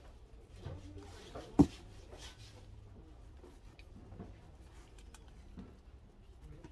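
Hands handling and binding flower stems on a worktable: soft rustles and small clicks, with one sharp knock about a second and a half in.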